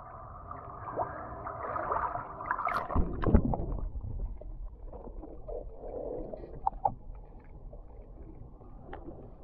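Pool water sloshing and gurgling as a Belgian Malinois puppy paddles out after a thrown frisbee, with a brief low rumble about three seconds in.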